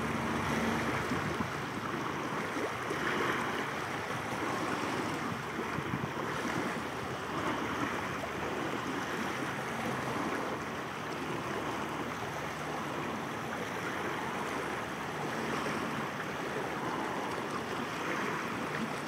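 Wind and choppy water lapping and splashing, with wind rumbling on the microphone.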